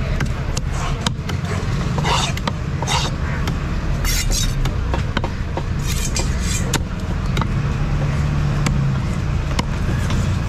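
A heavy cleaver scraping the scales off sickle fish skin on a wooden chopping block: short rasping strokes, several clearly a couple of seconds apart, with many sharp knife clicks and taps on the block. A steady low rumble of traffic runs underneath.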